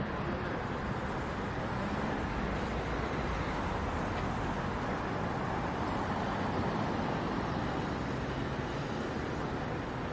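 Street traffic noise, a steady rush of passing cars, with a car driving past close by about six seconds in.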